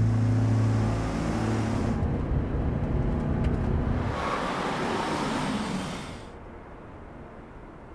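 Road traffic: cars passing. One vehicle passes loudly, swelling about four seconds in and dying away about six seconds in, leaving a quieter background hum.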